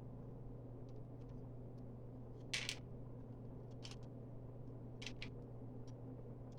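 A few sharp plastic clicks and clacks of Lego pieces being handled and fitted, the loudest a double click about two and a half seconds in, over a steady low hum.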